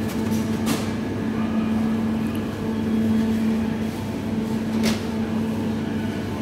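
Steady mechanical hum of a supermarket's refrigerated meat cases and air handling. Two brief knocks come through, one just under a second in and one about five seconds in.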